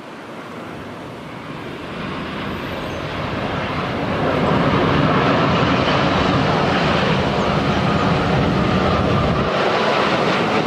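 Boeing 787-8 Dreamliner's twin turbofan engines passing on final approach: a steady rushing jet noise that grows louder over the first four or five seconds as the airliner comes closer, then holds loud.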